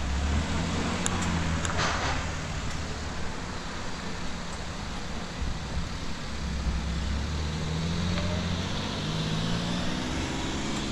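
Street traffic: car engines running and passing at low speed, with one engine's pitch rising near the end as it pulls away.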